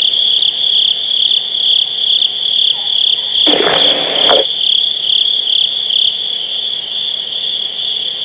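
Crickets chirping steadily, about three high-pitched chirps a second. A short hiss of noise, about a second long, comes about halfway through.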